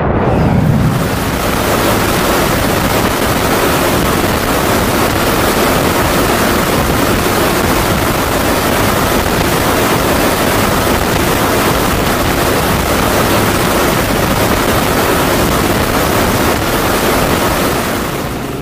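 Steady in-flight noise of aircraft engines and rushing air, an even rushing sound with a faint steady tone in it.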